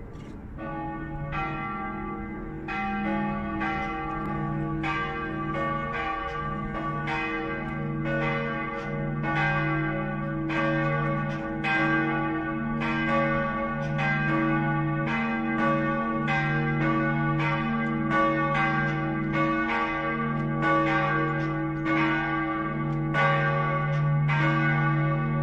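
Two swinging church bells, a large one cast in 1515 and a small one cast in 1650, tuned to C♯ and G, ringing together in a steady overlapping pattern. The ringing grows louder over the first several seconds as the bells swing up.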